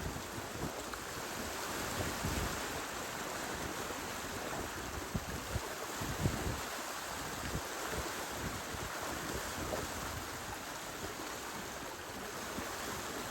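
Water rushing along the hulls of a sailing catamaran under way, a steady hiss, with wind buffeting the microphone in irregular low gusts.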